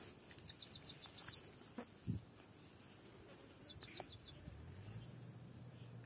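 A small bird calling outdoors: two quick runs of about eight short, high chirps, one near the start and one about four seconds in. A single low thump about two seconds in, and a faint low hum in the second half.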